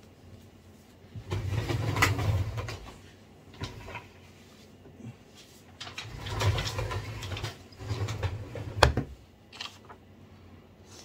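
Cardboard phone box and a paper receipt being handled and unfolded close to the microphone: several bursts of rustling and handling noise, with a sharp click near the end.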